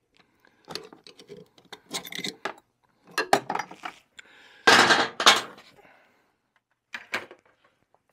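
Metal parts clinking and clattering in irregular bursts, loudest about five seconds in: the pieces of a snowmobile drive shaft bearing, its outer race cut off, being worked free of the shaft.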